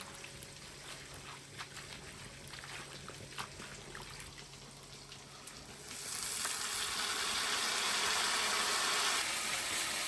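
Food frying in a pan of hot oil: scattered crackles and pops, then about six seconds in a louder, steady sizzle rises.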